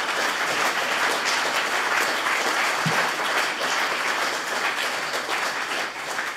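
Audience applauding steadily, a dense even clapping that starts to thin out near the end.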